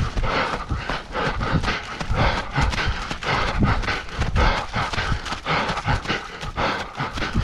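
Running footfalls on a trail in a quick, even rhythm, with hard panting.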